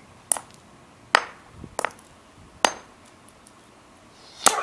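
A hammer striking a plastic Rubik's Cube: about five sharp knocks at irregular intervals of roughly a second.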